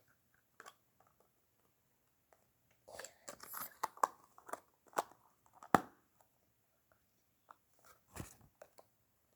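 Handling of a mini butter slime container and its packaging: a flurry of crackling and clicks starting about three seconds in, the sharpest click near six seconds, then a few faint ones.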